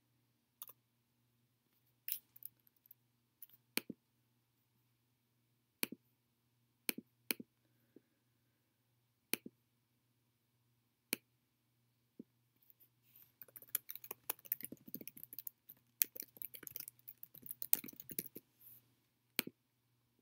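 Separate computer mouse clicks every second or two, then from about thirteen seconds in a run of rapid keyboard typing lasting about six seconds, with one more click near the end. A faint steady hum lies underneath.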